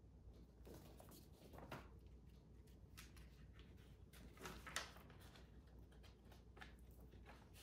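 Near silence: room tone with faint rustles and soft taps of a paperback picture book's pages being handled and turned, slightly louder a little past halfway.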